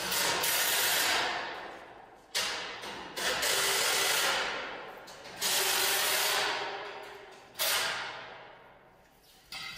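Power-tool work on a steel-tube frame: about five bursts of noise, each cutting in suddenly, running about a second and fading away over the next second or two.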